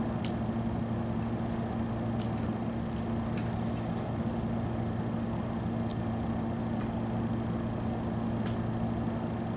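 Steady low hum of room tone with a few faint clicks scattered through it.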